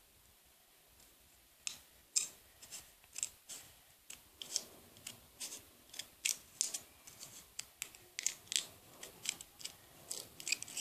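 Scissors snipping repeatedly at a plastic drinking straw: a run of short, crisp snips, about two or three a second, starting after a quiet second and a half.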